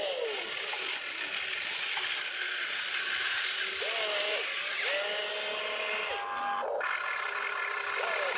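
Small electric motors and plastic gearboxes of a radio-controlled toy construction vehicle whirring with a grinding rattle. Short motor whines rise in pitch, hold and drop as functions start and stop, about four seconds in, again around five to six seconds, and near the end.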